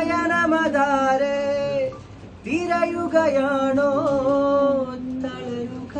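A voice singing a song in long, held, wavering notes, two phrases with a short break about two seconds in.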